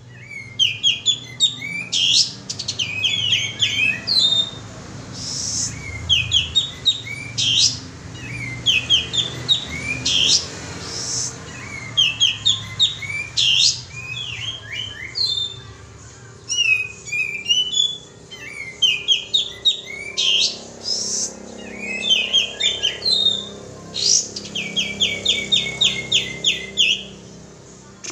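Kapas tembak bird calling, as played for a lure recording: short phrases of quick chirps repeated every second or two, with a longer fast run of chirps near the end.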